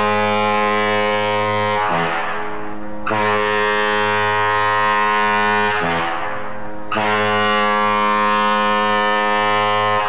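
Two air horns combined through a quick crossover switch to sound like a diaphone foghorn: long steady blasts, each ending with a drop to a lower note a minor third down, the 'grunt' a foghorn needs. A new blast starts about every four seconds.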